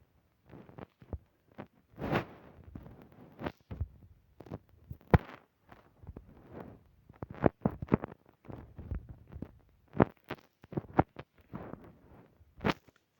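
Irregular knocks, clicks and short thumps, a dozen or so sharp hits scattered unevenly with brief rustling between them.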